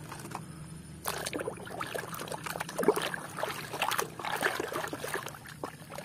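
Muddy water sloshing and splashing in a basin as a toy truck trailer is swished through it by hand to wash off the mud, with trickling and dripping; it starts about a second in, with a few louder splashes in the middle.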